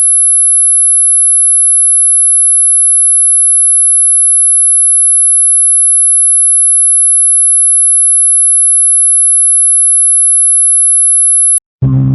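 Mosquito tone: a single steady, very high-pitched electronic tone, held unchanging and loud, that cuts off abruptly near the end. Right after, a deep, low horn-like note begins.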